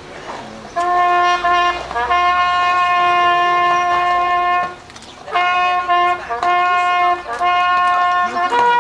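Coach horn, a long straight brass horn, blown on a four-horse road coach. One note is sounded as a short blast, a long held blast and then three shorter blasts, and it steps up to a higher note near the end.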